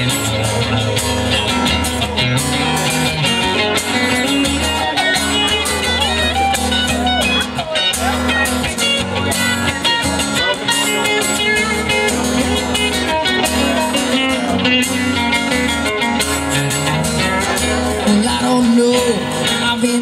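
Two acoustic guitars playing live, strumming steadily through an instrumental passage of a rock song.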